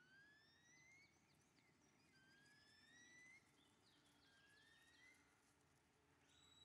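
Three faint rising whistles, each about a second long, with short higher chirps between them.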